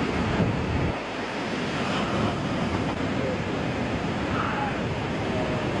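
Heavy storm surf: large waves surging and crashing in a steady wash of water noise, with wind buffeting the microphone.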